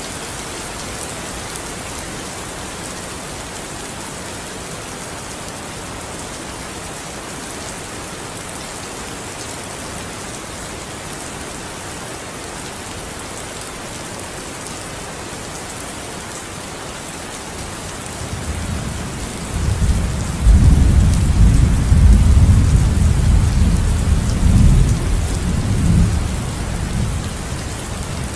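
Steady rain falling, with a roll of thunder rumbling in about two-thirds of the way through, peaking and then fading near the end.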